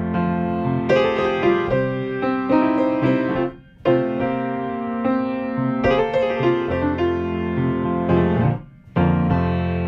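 Piano music playing, with sustained chords and notes. It drops almost to silence briefly twice, about three and a half seconds in and near the end.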